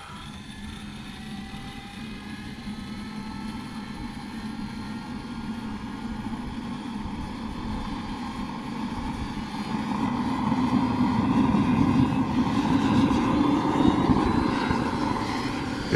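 Radio-controlled scale MD 600N model helicopter spooling up on the ground. Its drive whines and climbs steadily in pitch, and the rotor sound grows steadily louder as it comes up to speed.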